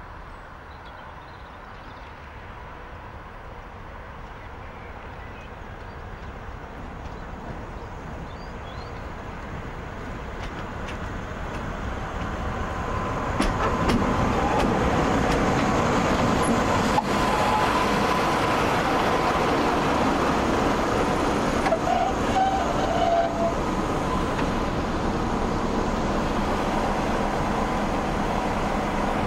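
Class 45 'Peak' diesel-electric locomotive's Sulzer twelve-cylinder engine running as the locomotive comes slowly closer, growing steadily louder over the first half and then holding loud. A steady whine sits over the engine note from about halfway.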